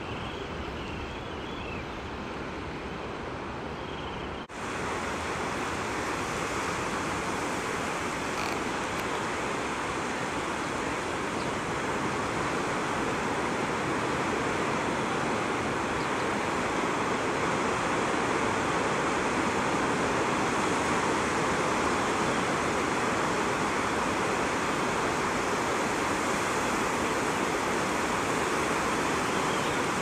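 Steady wash of ocean surf on a beach, a continuous noise with no distinct bird calls. It drops out for an instant about four and a half seconds in and then continues a little louder.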